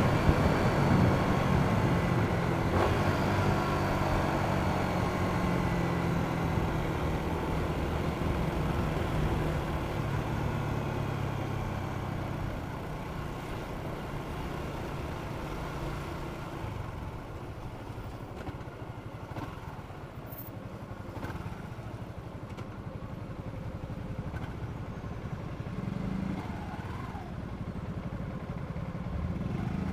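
Yamaha Jupiter MX King 150 (Y15ZR) with its stock exhaust, engine running steadily on the move. The engine note is strongest at first, fades away over the middle, and picks up a little again near the end.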